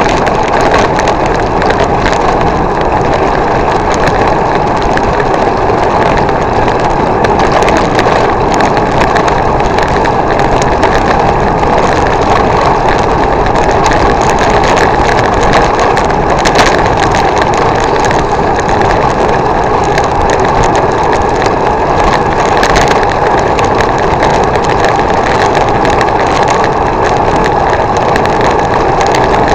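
Steady rush of wind and road noise on a moving bicycle, picked up by a bike-mounted camera's microphone, with the hiss of tyres on a wet road.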